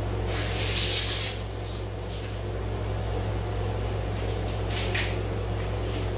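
Rustling and rubbing as a coiled heavy-duty extension cord and its wrapping are handled. A loud hissing rustle about half a second in lasts under a second, and a few shorter rustles follow. A steady low hum runs underneath.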